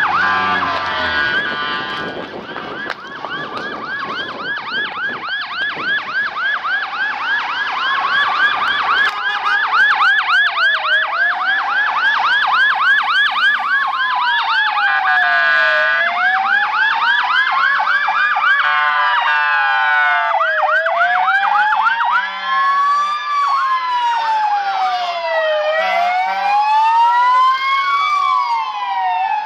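Several fire-engine sirens sounding at once as the convoy approaches. A fast warbling yelp overlaps slow rising-and-falling wails, and in the second half two wails sweep out of step with each other and grow louder.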